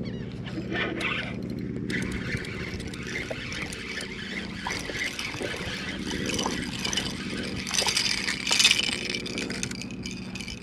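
A steady motor hum with a spinning reel being cranked as a small trout is fought in, and a splash about eight seconds in as the fish breaks the surface and is lifted from the water.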